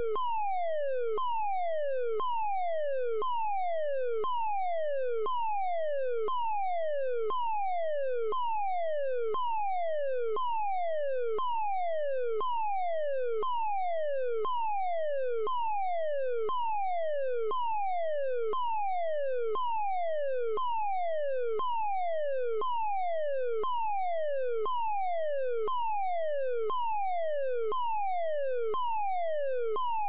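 Electronic fire alarm sounding: a loud tone that sweeps down in pitch, repeating about once a second without a break.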